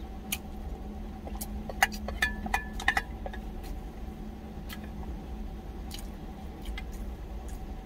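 Wooden spoon clinking and scraping against a stainless steel food jar, a quick cluster of clinks with short metallic ringing about two to three seconds in, followed by quieter eating and mouth sounds. A steady low engine hum runs underneath.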